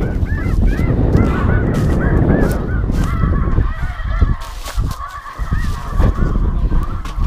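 Snow goose calls: many quick, high honks overlapping without a break, over a low rumble that eases off about halfway through.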